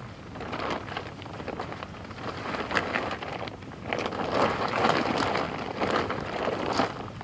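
Tent fabric rustling and crinkling as it is lifted and shaken out by hand, in irregular swells of crackle that grow louder in the second half.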